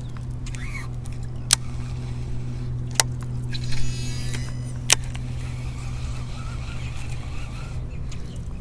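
Baitcasting reel clicking sharply four times, about a second and a half apart, with a brief whir of the spool paying out line about four seconds in as a jig is flipped out. A steady low hum runs underneath.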